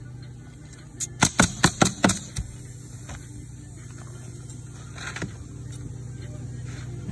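Pneumatic coil roofing nailer driving nails into asphalt shingles: a quick run of about six shots about a second in, then a fainter pair near five seconds. A steady low hum runs underneath.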